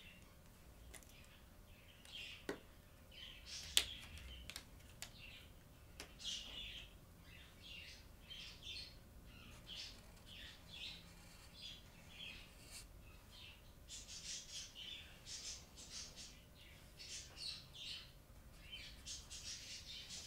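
Chisel-tip marker squeaking and scratching across the board in short, quick strokes as a letter is drawn. A couple of sharp clicks come in the first few seconds.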